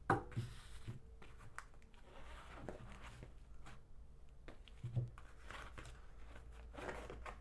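Handling noises as wrenches are taken out of their packaging: soft rustling with several sharp knocks and clicks spread through it.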